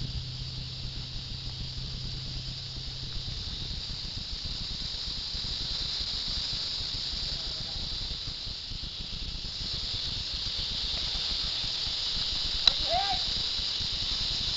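Steady high-pitched hiss that grows a little louder about two-thirds of the way in, with a single sharp crack and a brief distant call near the end.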